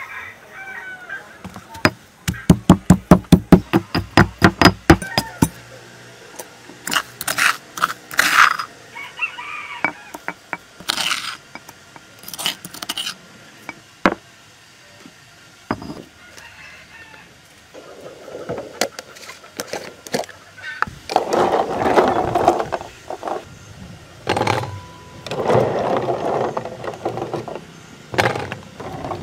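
Stone pestle pounding chilies and salt in a stone mortar: a quick run of about a dozen sharp strikes, about four a second, starting about two seconds in and lasting about three and a half seconds. Later come scattered knocks and longer stretches of clattering.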